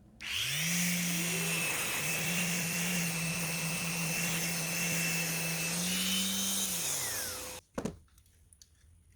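An electric motor is switched on, spins up quickly, and runs steadily for about six seconds with a high whine and a rushing-air hiss. Its pitch rises slightly near the end, then it winds down and cuts off abruptly. A few faint clicks follow.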